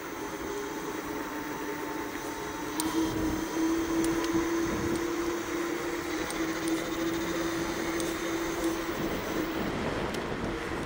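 Bluetran Lightning electric scooter riding at speed on a paved path: a steady motor whine over tyre and wind noise. The whine gets a little higher and louder about three seconds in, then eases off near the end.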